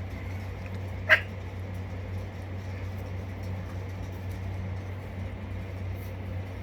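A young puppy gives one short, sharp squeak about a second in, over a steady low hum.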